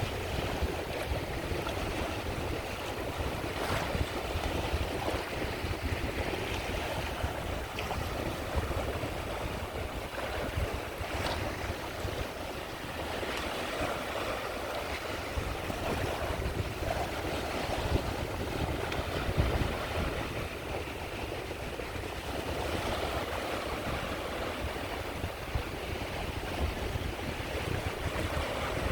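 Sea waves washing onto the shore of the Caspian Sea: a continuous wash of surf that swells and eases gently, with a few brief splashes.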